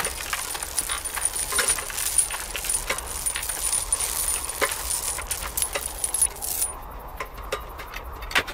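Metallic jangling and clinking, many small sharp clicks over a hiss, with a thin high steady tone that cuts off about two-thirds of the way through.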